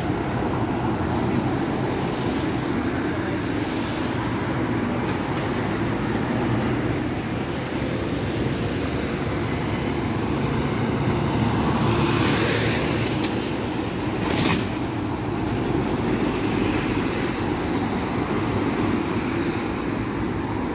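Steady road traffic passing at a busy junction: a double-decker bus, a lorry and cars, engine and tyre noise. A short sharp hiss comes about fourteen seconds in.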